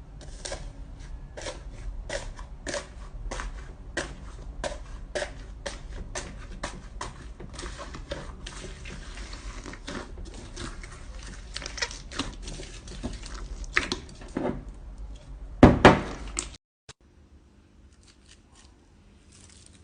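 Hands kneading and squeezing slime, making a run of sticky clicks and small air-pocket pops about two or three times a second. There is one louder squelch about sixteen seconds in, then it goes quiet.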